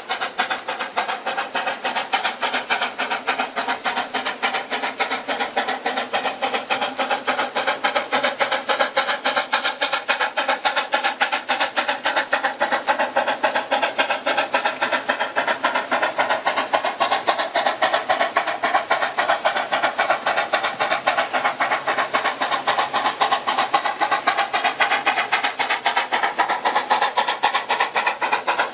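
C2 narrow-gauge steam locomotive working, its exhaust chuffing in a fast, even rhythm of sharp beats, several a second, getting slightly louder toward the end.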